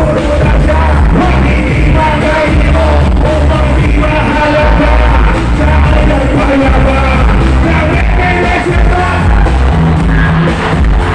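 Loud live music over a PA system: a backing track with heavy bass, and a man's vocals through a microphone over it.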